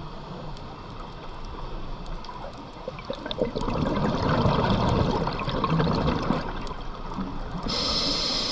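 Scuba diver's breathing picked up by an underwater camera: a burst of exhaled bubbles gurgling from the regulator for about three seconds from halfway through, then the regulator hissing as the diver breathes in near the end.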